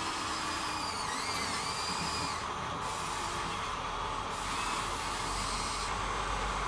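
Small electric motors and gearboxes of Huina radio-controlled excavators whining steadily, with the pitch gliding up and down briefly as the machines work.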